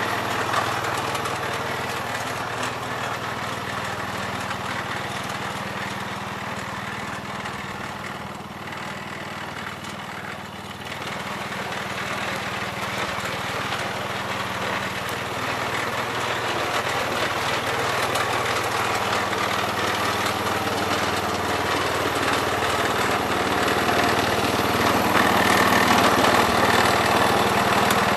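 Gravely 408 tractor engine running steadily while plowing snow. It dips in loudness about a third of the way in and grows louder near the end.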